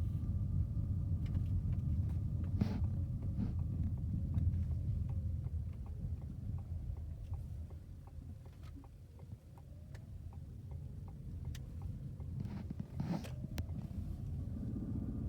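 Low road rumble inside a moving Ford car, easing off in the middle as the car slows. A turn signal ticks evenly through that quieter stretch, and there are two single knocks, one early and one near the end.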